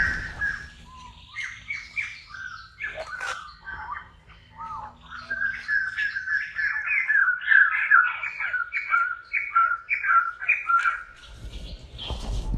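A series of short, high chirping and squawking animal calls, sparse at first and then coming quickly at about two to three a second through the middle. A brief noisy rustle comes near the end.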